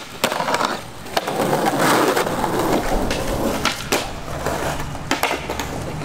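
Skateboarding on stone paving: polyurethane wheels rolling over the tiles, with a series of sharp clacks as the board pops and lands on the ground.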